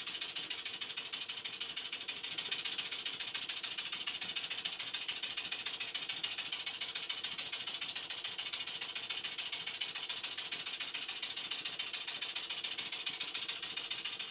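Model Southworth rotative boiler feed pump running on compressed air: a fast, even mechanical ticking over a steady hiss of air. It is running unloaded, not pumping water.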